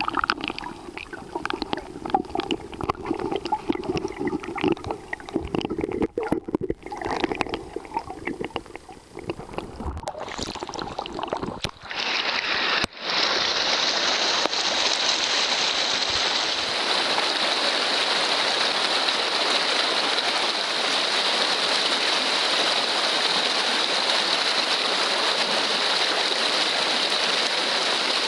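Muffled, uneven gurgling and sloshing of river water heard with the microphone underwater. About thirteen seconds in it gives way to the loud, steady rush of a shallow riffle running past close to the microphone at the water's surface.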